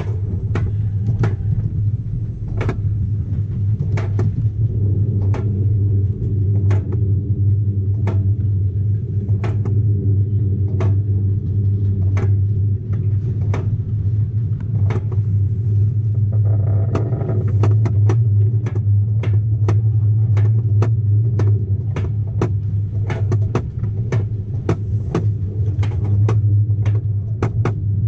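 Mountain Innovations Rollbob alpine coaster sled running down its rail track: a steady low rumble from the wheels, with sharp clacks at irregular spacing, about one or two a second, coming more often in the second half.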